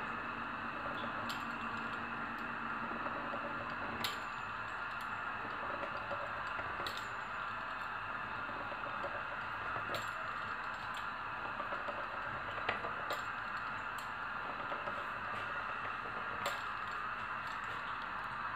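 Pizza cutter wheel rolling through thin dough against a marble countertop, giving a light click every second or few as each strip is cut, over a steady background hiss.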